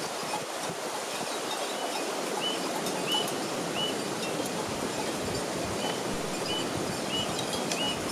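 Steady rush of running water, like a mountain stream. Twice, a short high chirp repeats about every half second.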